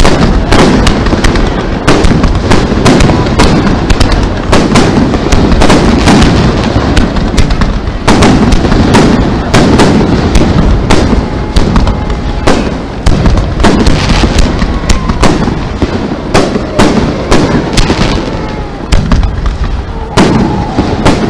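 A rapid barrage of aerial firework shells bursting: loud bangs and crackles several times a second over a constant low rumble. Faint whistling glides come in now and then in the second half.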